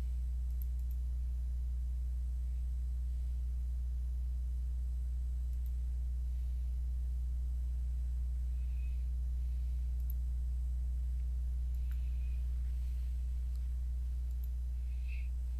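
Steady low electrical hum, unchanging throughout.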